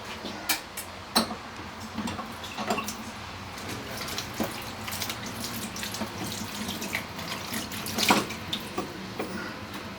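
Kitchen tap running into a sink, with scattered knocks and clatter of things being handled, the loudest about eight seconds in.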